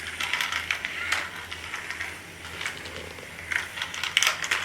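Battery-powered toy car running along a plastic magnet-tile race track, a low steady motor hum under irregular clicks and rattles.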